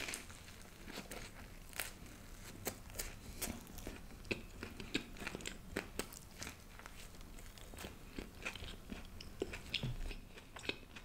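Close-miked biting and chewing of toasted smoked chicken garlic bread: irregular crisp crunches and wet mouth clicks, with a bite at the start and another about six seconds in.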